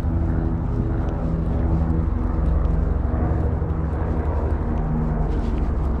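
Steady low engine drone, a hum with several wavering tones, from motor traffic or an engine nearby.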